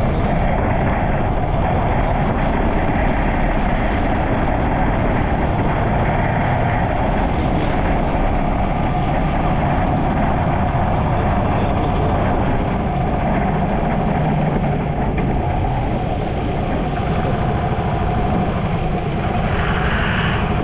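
Steady road noise of a vehicle driving on a wet road in rain: engine, tyre and wind noise running together without a break.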